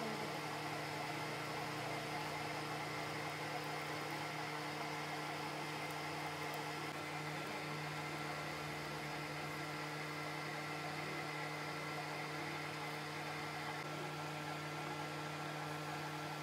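Manual metal lathe running at a steady speed while turning a slender steel firing pin: a steady hum with a few constant tones, unchanged throughout.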